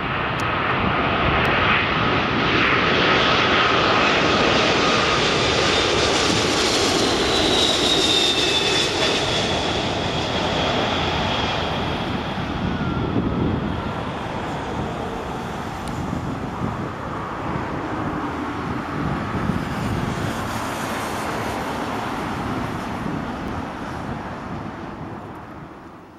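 Boeing 747-400's four Rolls-Royce RB211 turbofans passing low overhead on landing: a loud jet rumble with a high fan whine that sinks slightly in pitch as the airliner goes by. It is loudest over the first ten seconds, then settles into a lower, steadier jet noise as the aircraft rolls down the runway.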